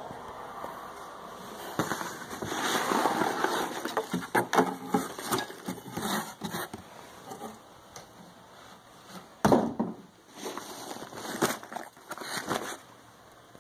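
A cardboard shipping box and the fabric backpack inside it being handled: irregular rustling and crackling with sharp clicks as the bag is lifted out. The sound is busiest from about two to seven seconds in, with a loud short burst about nine and a half seconds in and more rustling near the end as the bag is handled.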